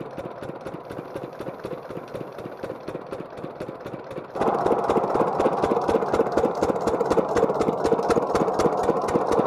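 Stationary single-cylinder diesel pump engine with twin flywheels running steadily, a fast even chug of firing knocks as it drives the well pump. It gets markedly louder about halfway through, as it is heard up close.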